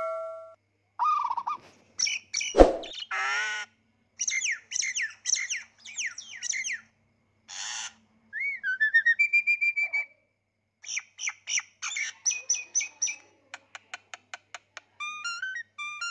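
A string of short, varied bird-chirp and whistle sound effects, each separated by dead silence: trilled chirps, rising and falling whistle glides and a quick run of clicks, with one sharp thud about two and a half seconds in.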